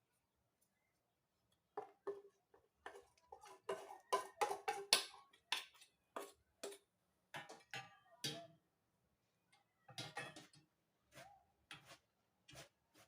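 A utensil clinking, knocking and scraping against a bowl while gum paste ingredients are mixed by hand. The sharp clicks come in irregular bunches, thickest a few seconds in and sparser later.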